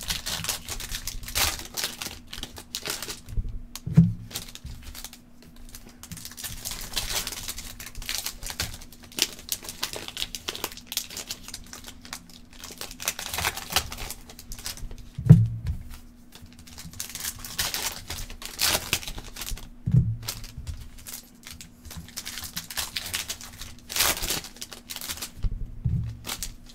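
Foil trading-card packs crinkling and tearing open in the hands, in repeated bouts, with a few louder knocks against the table. A faint steady hum runs underneath.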